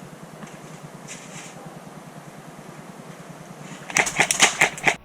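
Airsoft gun firing a rapid full-auto burst of about nine shots near the end, lasting under a second.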